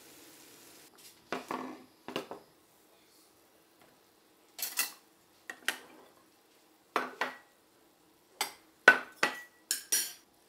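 Ceramic plates and metal cutlery set down on a wooden table: about eleven separate clinks and clatters, some ringing briefly. A faint frying sizzle fades out in the first second.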